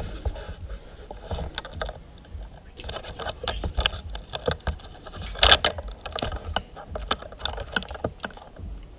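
A run of irregular clicks, scrapes and rustles, with one sharper knock about five and a half seconds in.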